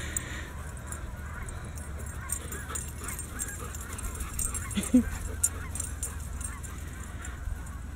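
German shepherd whining and crying in high, wavering calls, over and over: the dog wants back the ball another dog has taken. One short, louder sound comes about five seconds in.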